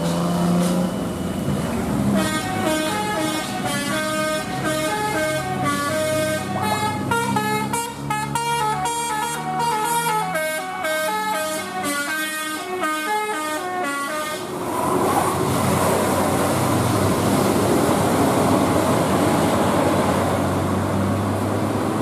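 Basuri-type telolet multi-tone horn on a tour bus playing a quick melody of stepping notes for about twelve seconds. It stops and gives way to a steady rush of engine and road noise as the bus drives past.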